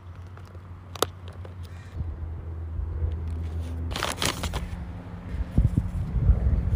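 Paper crinkling and rustling as a hand-made paper package is opened, with a loud crackle about four seconds in and denser crackling near the end, over a low steady rumble.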